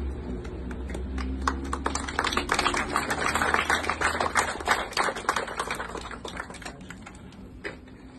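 A small crowd applauding: scattered hand claps that start about a second in, thicken into steady clapping, then die away shortly before the end.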